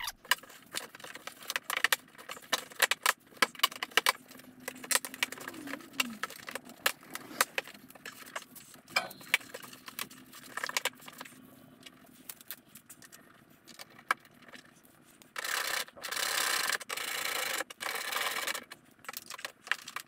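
Scattered clicks, taps and rubbing of plastic trim and fasteners being handled and pushed back into place in a vehicle's wheel well, with a few seconds of louder continuous rubbing near the end.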